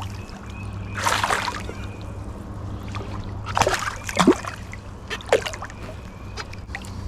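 Creek water splashing in a few short bursts, about a second in and again around four to five seconds, over a steady low rumble.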